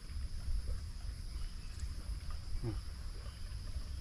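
Outdoor ambience: an uneven low rumble under a steady high-pitched insect drone, with one brief faint sound about two-thirds of the way through.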